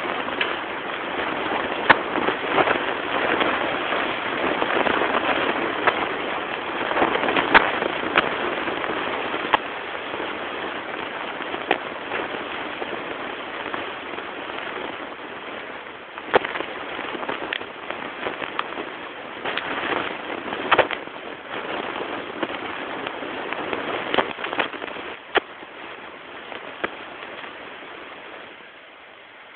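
Water splashing and bubbling in a saltwater aquarium, with scattered sharp clicks throughout. The splashing grows quieter in the second half and fades further near the end.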